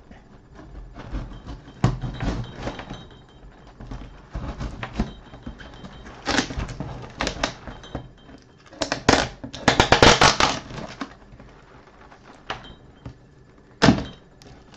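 Large kitchen knife cutting open a cardboard parcel in a series of scraping, ripping strokes, the loudest run about nine to eleven seconds in.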